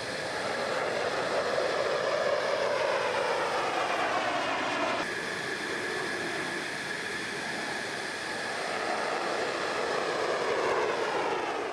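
Fighter jet's engine running in afterburner: a steady roar with a slowly sweeping, swirling tone as the jet passes. The sound changes abruptly about five seconds in, and swells again near the end.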